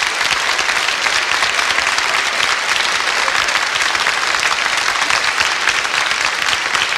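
Large theatre audience applauding, many hands clapping in a steady, dense patter.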